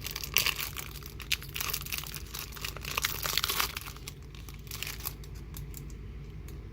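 Foil Pokémon booster pack being torn open and crinkled by hand, dense crackling for about four seconds, then thinning to a few scattered crinkles.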